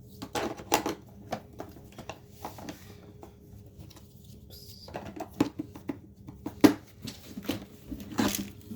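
Plastic parts of a Bissell robot vacuum and its mop attachment being handled: irregular clicks and knocks, a few sharper taps about a second in and again around five to seven seconds in.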